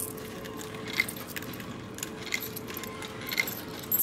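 Yen coins clinking as they are fed one by one into a vending machine's coin slot, a sharp metallic clink about once a second.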